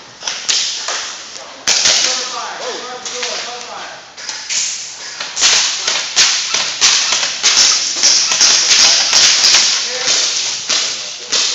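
Airsoft guns firing indoors: sharp cracks and taps in quick succession, growing denser about halfway through, with some voices mixed in.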